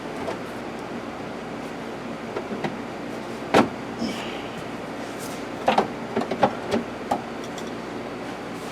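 Clicks and knocks of plastic heater-duct pieces being handled and fitted under a car's dash, over a steady hiss. There is one louder knock about three and a half seconds in and a quick run of clicks around six to seven seconds.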